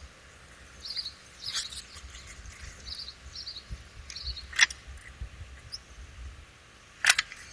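Two sharp clicks about two and a half seconds apart, the second the louder, over faint high chirping and a low rumble.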